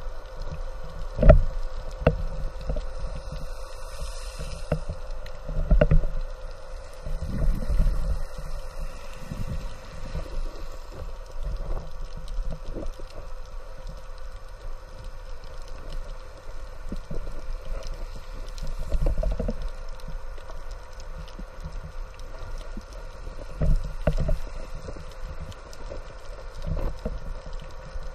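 Muffled underwater sound picked up by a camera in its housing: water rumbling with irregular low thumps and knocks, the loudest about a second in, over a faint steady hum.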